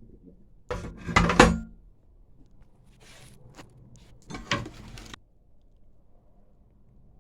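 Knocks and rattles of a lawnmower's metal front axle and deck parts being worked out of the plastic deck, with a loud clatter about a second in and another around four and a half seconds.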